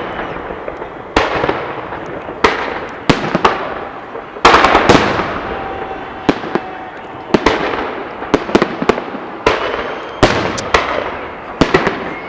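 A fireworks salute: aerial shells bursting in a rapid, uneven string of loud bangs, some in quick pairs or threes, each followed by a fading rumble.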